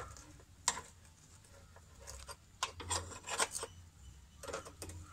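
A 14 mm spanner working a bolt loose on a two-stroke engine's kick-start housing: scattered, irregular metal clicks and scrapes, more frequent in the second half.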